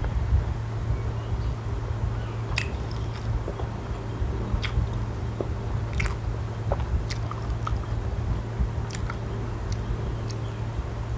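A person chewing and biting food close to the microphone, with irregular sharp crunchy clicks every second or so, over a steady low hum.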